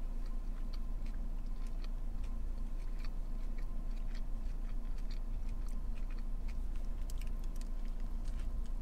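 A person chewing a mouthful of soft-shell chicken taco (flour tortilla with cabbage and lettuce): soft, wet chewing clicks throughout. She takes another bite near the end.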